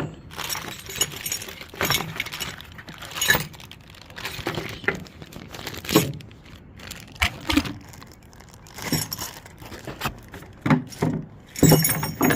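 Small metal hardware from a tailgate-assist kit (nuts, bolts, brackets) being poured out of its packaging, clattering and jingling in irregular bursts, with plastic bags crinkling.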